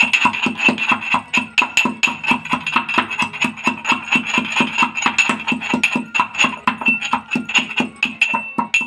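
Metal pestle pounding green chillies and coriander leaves in a metal mortar: rapid, ringing metallic clinks at about four or five strikes a second.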